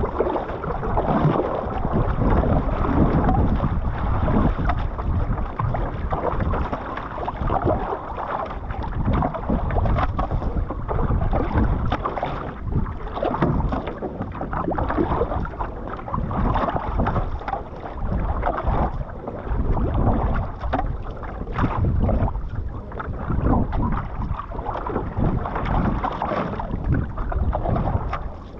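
Water splashing and rushing against the hull of a one-person outrigger canoe as it is paddled at sea. The paddle blade dips and pulls through the water, and the sound swells and dips with the strokes.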